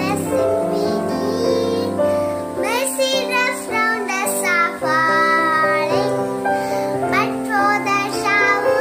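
A young girl singing a prayer song, her voice gliding between notes over sustained instrumental accompaniment.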